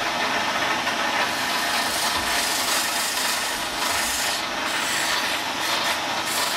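A wooden workpiece spinning on a wood lathe being hand-sanded with abrasive cloth: a steady rubbing hiss of abrasive on wood.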